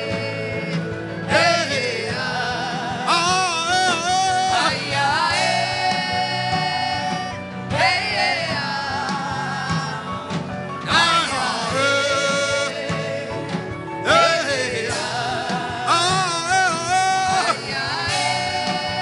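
Worship music: a singer's voice in long, wavering phrases with vibrato, pausing briefly every few seconds, over steady instrumental accompaniment.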